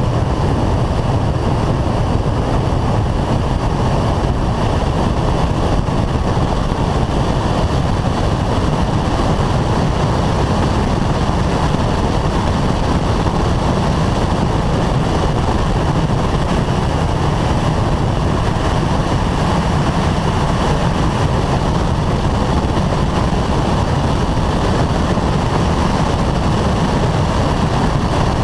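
Renault Clio 182 at track speed heard from a roof-mounted camera: a steady rush of wind over the camera and road noise, with the car's engine underneath.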